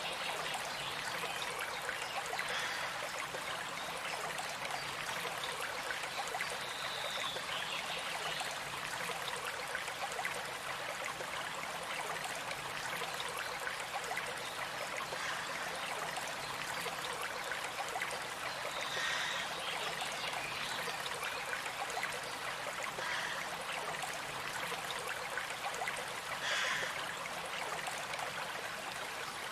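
Stream water running steadily, with a few short bird calls over it, around a third of the way in, about two thirds in and near the end.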